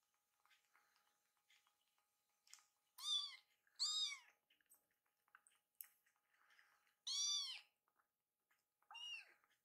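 Orange-and-white kitten meowing four times, short arching cries, two close together and then two more spaced a few seconds apart. The kitten is hungry and crying to be fed while another kitten takes its turn at the bottle.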